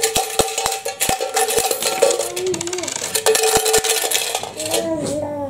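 Metal coins, mostly Indonesian 1000-rupiah pieces, clinking and scraping against each other as a hand sorts through a heap of them on a tabletop, with irregular sharp clicks.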